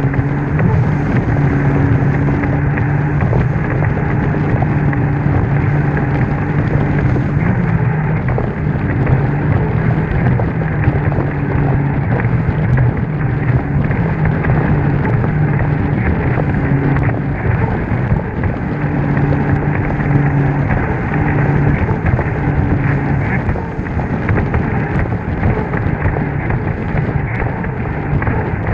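Jet ski running at speed across open water: a steady engine drone that swells and fades every few seconds under heavy wind on the microphone and rushing spray.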